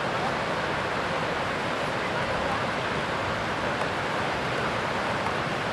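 Shallow river rapids rushing over and between granite boulders: a steady, even rush of white water.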